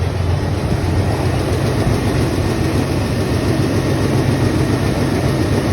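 Oldsmobile 442's V8 engine idling steadily. It is running again now that the fault in the power feed to the ignition coil has been found and the coil is getting power.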